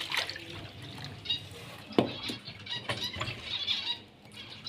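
Water poured from a steel pot into a ceramic bowl, splashing and trickling. About two seconds in come a few knocks as the bowl is handled.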